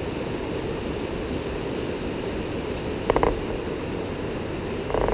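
Steady rushing of a river and waterfall below a lookout, with a brief clatter about three seconds in.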